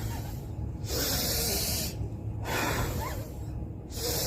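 A person breathing in deeply and blowing out hard through the mouth, in a breathing exercise of blowing at a tissue. There are two strong, airy blows, each lasting about a second: one about a second in and one near the end, with softer breaths in between.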